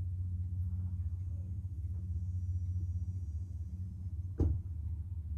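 Steady low rumble of an idling vehicle engine, with one loud thump about four seconds in.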